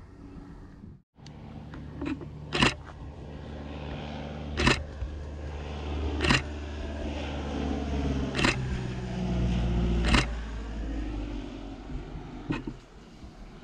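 Aircraft engine drone building as a small aircraft flies low overhead, loudest near the middle, its pitch dropping as it passes and fading near the end. Sharp camera shutter clicks sound every couple of seconds over it.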